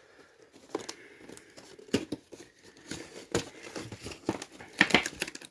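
Action figure's cardboard and plastic box being handled and opened: crinkling and rustling with several sharp clicks and snaps, the loudest cluster near the end.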